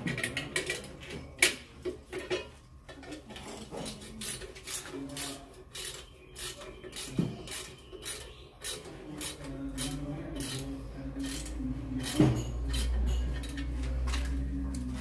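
Hand tool scraping and knocking at a plaster wall, digging out a channel: irregular sharp clicks and scrapes, with a low rumble coming in about twelve seconds in.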